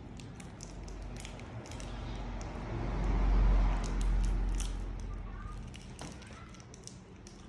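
Plastic candy wrapper crinkling as a sweet is unwrapped by hand, a string of small crackles. A low rumble swells up and fades away in the middle, loudest about three and a half seconds in.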